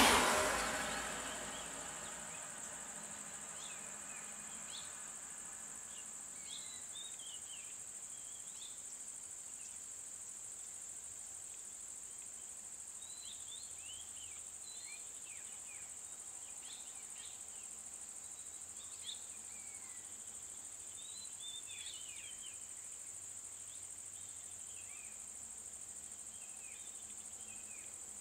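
A passing vehicle fades out within the first two seconds. After it, insects keep up a steady high-pitched drone, with many short bird chirps over it.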